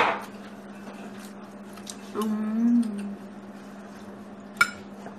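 A woman's short hummed vocal sound about two seconds in, between two sharp clicks of cutlery against dishware, one at the start and one near the end, over a steady low hum.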